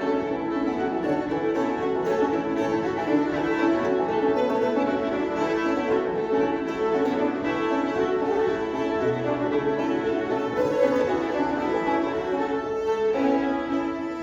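An old-time fiddle tune played live on two fiddles with banjo, the fiddles bowing a steady run of notes together.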